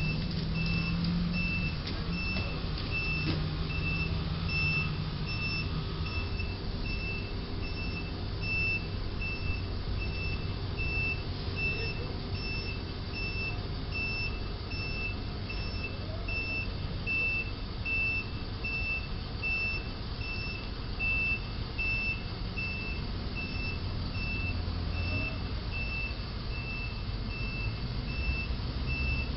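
Box truck backing up: its reversing alarm beeps steadily, about once a second, over the low running of its engine.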